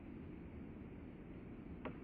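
Steady low outdoor background noise with no clear source, broken by one faint short click near the end.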